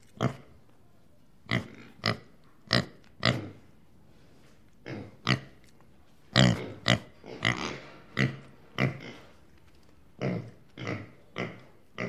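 Young domestic pigs grunting: a string of short, separate grunts at irregular intervals, sometimes two in quick succession, with a brief lull around the fourth second.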